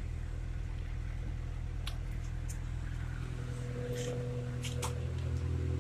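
Honda B20B inline-four engine in a Civic idling steadily through a new SRS cat-back exhaust, a low even hum, with a few light clicks over it.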